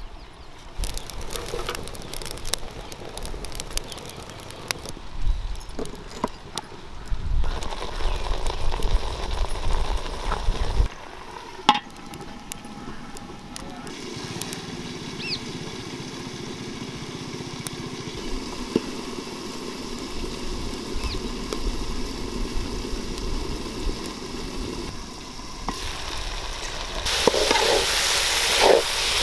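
Wood fire crackling under a covered pot on a clay stove. Near the end, a louder stretch of a metal slotted spoon stirring chicken pieces sizzling in a steel pot.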